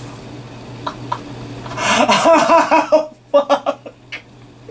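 A man laughing uncontrollably. After a quiet start, a loud drawn-out laugh comes about two seconds in and breaks into a quick run of short bursts.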